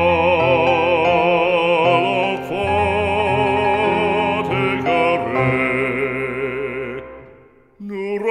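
A French hymn, sung with strong vibrato in long held notes over a sustained accompaniment. It dies away about seven seconds in and starts again just before the end.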